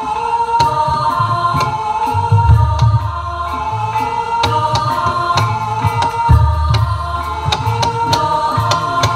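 Live kuda kepang accompaniment music: a gamelan-style ensemble with deep drum strokes coming every second or so and sharp slaps cutting across, under a held melody line, with voices singing.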